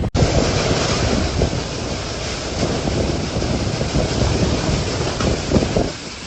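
Typhoon wind roaring, gusts buffeting the microphone with an uneven low rumble over a steady rush of wind and rain noise.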